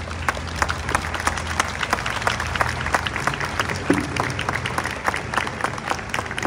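Crowd applauding: many people clapping at once, dense and steady throughout.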